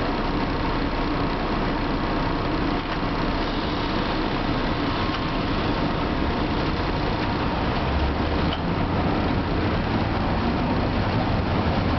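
Steady running noise inside a Tosa Electric Railway streetcar standing still, then a low rumble from the traction motors comes in about two-thirds of the way through as the tram starts off along the rails.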